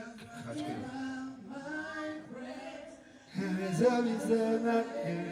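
A voice singing long, drawn-out notes that glide in pitch, with no clear backing instruments; a second, louder phrase starts about three seconds in.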